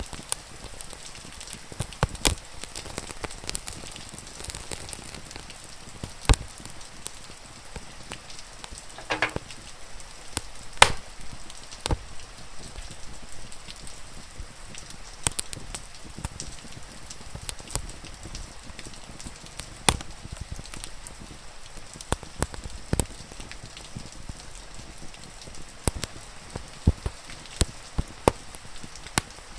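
Wood fire crackling, with sharp pops at irregular intervals, over a steady hiss of rain.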